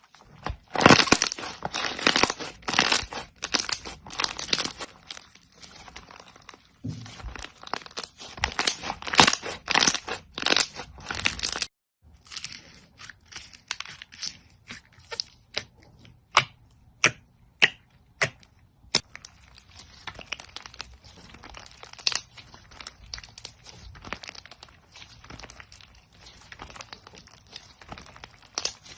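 Crunchy slime being squeezed and pressed by hand, crackling and popping densely. The sound breaks off about twelve seconds in, then goes on as sparser, sharper pops.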